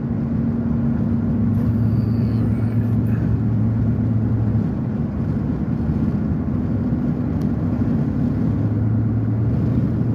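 Vehicle engine running with a steady low hum, over a continuous rush of noise.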